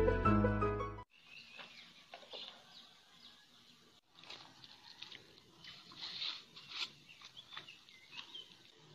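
Background music that cuts off abruptly about a second in, followed by faint outdoor ambience with birds chirping now and then.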